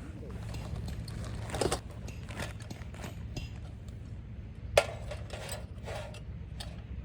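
Light clinks and knocks of objects being handled, with one sharp knock about five seconds in, over a steady low rumble.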